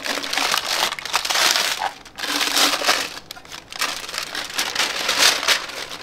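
Parchment paper crinkling and rustling in several bursts as gloved hands unwrap it from a hot bottle.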